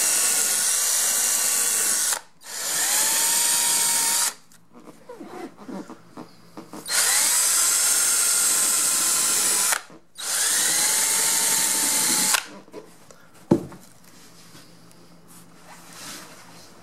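Electric drill spinning a foam-rubber shaping disc against seat foam, run in four bursts of two to three seconds; each burst begins with a rising whine as the motor spins up. Between the bursts and after them there are light handling noises, and a single sharp knock comes near the end.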